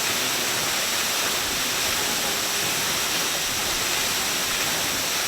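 Minoh Falls waterfall: the steady rush of falling water crashing into its pool, an even hiss that holds constant throughout.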